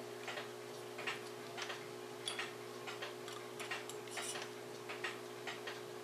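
Mechanical clock ticking faintly, about two ticks a second, over a steady low hum.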